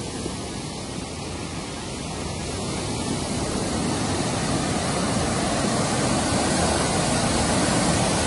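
Muddy floodwater rushing across and spilling over the edge of a road: a steady rushing of water that grows gradually louder.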